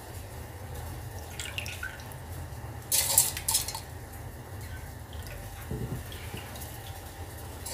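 Wet soaked rice being tipped and scraped from a bowl into a stainless steel mixer-grinder jar: a few short wet patters and scrapes, the loudest about three seconds in, over a low steady hum.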